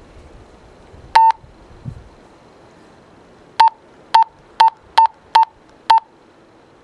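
Key beeps from a Retevis RT602 UHF CB walkie-talkie as its channel-up button is pressed: seven short, loud single-pitched beeps, one about a second in and then six in quick succession about half a second apart.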